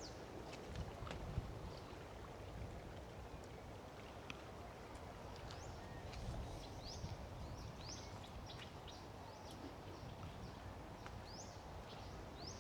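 Birds calling with short, high chirps that sweep downward, repeated irregularly throughout, over a faint steady low rumble of outdoor background noise.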